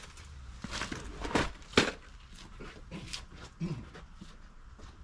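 Footsteps on a hard outdoor surface: a few sharp scuffs in the first two seconds, then softer, sparser steps.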